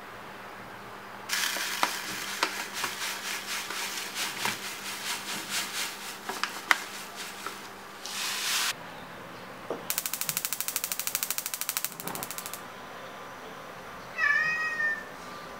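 Crinkly plastic bread-crumb bag rustling as the crumbs are poured into a plastic bowl. Then a gas hob's spark igniter clicks rapidly for a few seconds as the burner is lit, and near the end a cat meows once.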